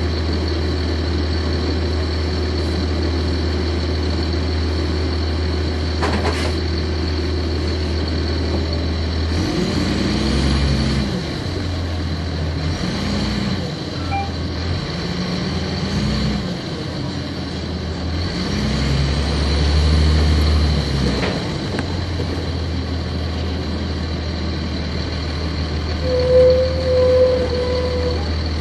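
Cummins ISC inline-six diesel of a 1999 Nova Bus RTS, heard from inside at the rear of the bus. It idles steadily, then its note climbs and drops several times as the bus moves off and the ZF automatic gearbox shifts, then settles back to a steady idle. A short beeping tone sounds near the end.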